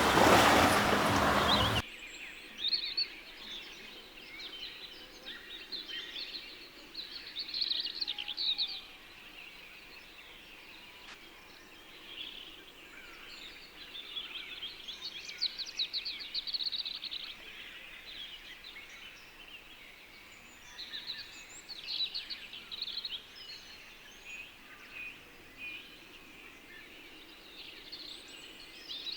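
Wild birds singing and chirping: many short calls and rapid trills from several birds over a quiet background. A loud rushing noise in the first two seconds cuts off abruptly.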